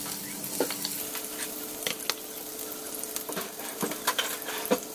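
Chopped onion sizzling steadily in hot oil in a frying pan, broken by several sharp clicks as a knife scrapes the onion off a plastic chopping board into the pan.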